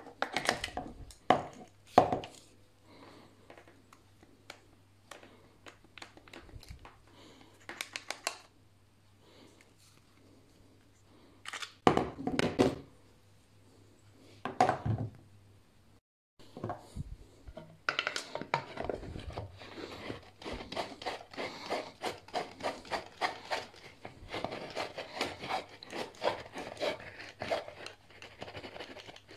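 Hands handling a foam cannon and its brass and plastic fittings on a wooden table: a few sharp knocks and clicks of metal and plastic parts set down and fitted together, then, for the last ten seconds or so, a dense run of quick clicks and rubbing.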